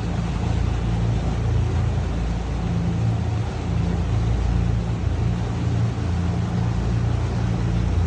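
Boat engine running steadily at low speed, a deep even hum, with water washing around the hull.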